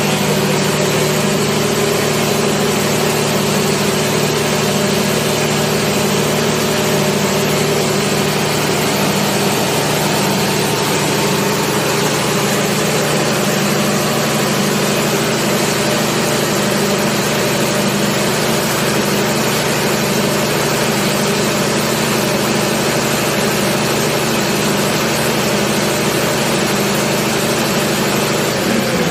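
Ship's emergency generator, an inline six-cylinder diesel engine, running steadily on test after being started from its control panel.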